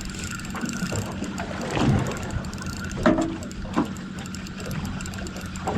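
Fishing reel working with a fine, rapid ratchet-like clicking as line goes down to the bottom and is wound in, over a steady low hum from the boat, with a few short knocks.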